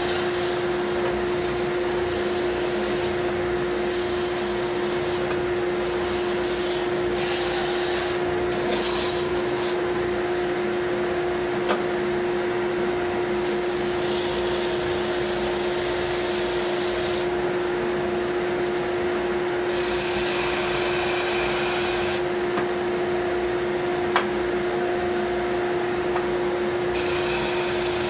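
Electric sander running steadily on a wooden bandsaw box, a constant motor hum under a high sanding hiss that comes and goes every few seconds.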